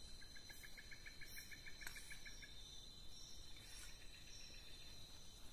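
Night insects in the forest calling steadily with a high, thin whine. For the first two seconds or so a chirping call repeats about five times a second over them, and a faint click comes near two seconds in.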